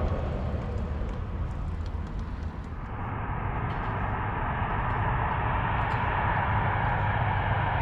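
Aircraft engine noise that swells and grows steadily louder from about three seconds in, over a constant low rumble.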